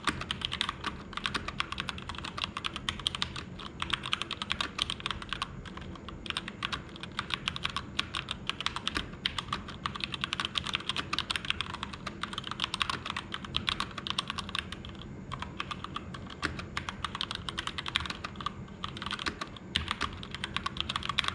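Continuous fast typing on a Keychron K2 V2 hot-swap mechanical keyboard with stock red linear switches and a thin layer of foam added to the case: a dense, unbroken run of keystroke clacks.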